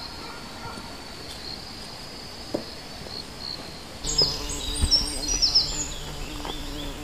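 Insects trilling with a steady high note. About four seconds in the sound changes to louder, quick high chirps over a faint low hum.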